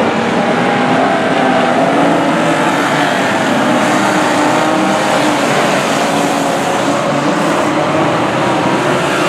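Several banger racing cars' engines running together during a race, a steady mix of overlapping engine notes.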